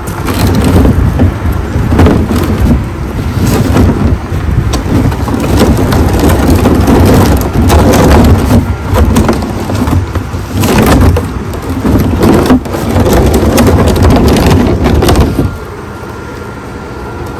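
Pressure washer wand spraying high-pressure water onto oil-stained concrete, a loud rushing spray that varies as the jet moves and cuts off suddenly near the end.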